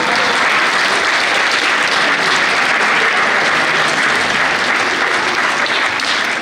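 Audience of schoolchildren applauding: dense, steady clapping that thins out near the end.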